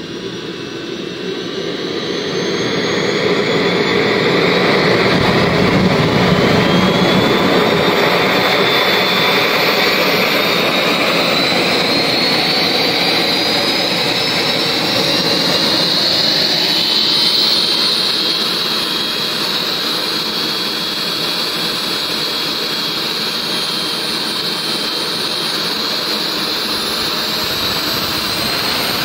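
JETPOL GTM100 micro jet engine spooling up on a test bench: a loud rushing noise with a high turbine whine that climbs steadily in pitch for about the first seventeen seconds, then eases slightly and holds steady.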